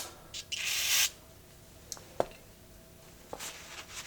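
A short hiss of aerosol carburetor cleaner sprayed onto a spark plug to clean it off, lasting about half a second, followed by a few faint small clicks as the plug is handled.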